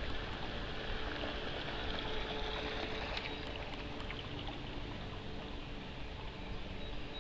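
Radio-controlled model speedboat's motor running faintly at a distance, a thin steady hum under a constant hiss of wind and rippling water.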